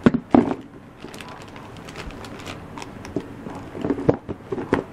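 Clear plastic tackle boxes and packs of soft-plastic baits being handled and shifted: scattered plastic clicks and knocks, a sharp one just after the start and a cluster near the end.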